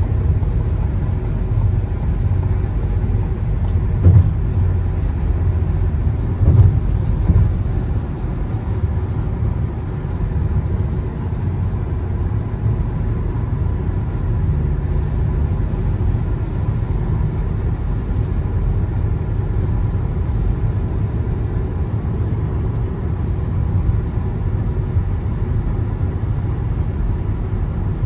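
Car driving: a steady low rumble of road and engine noise, with two short knocks about four and six and a half seconds in.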